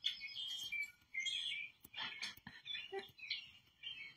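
Small birds chirping and twittering in quick, varied calls, played through a TV's speakers from a bird video.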